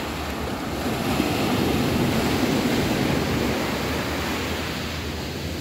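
Sea waves breaking and washing up a sandy beach. The wash swells about a second in, is loudest in the middle, and eases off toward the end.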